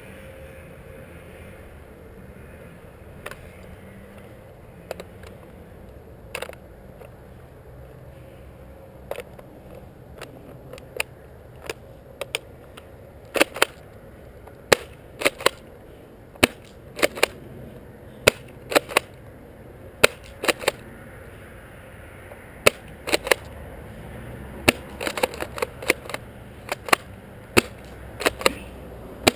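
Bravo tri-shot airsoft pump shotgun being pumped and fired: sharp pops and clacks, a few scattered ones at first, then coming quickly and often in close pairs from about halfway on.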